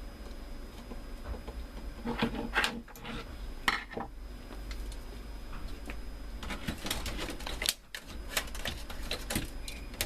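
Printer parts being handled and fitted back together: irregular clicks, knocks and rattles of plastic and metal in two busy spells, the first about two seconds in and the second past the middle, over a steady low hum.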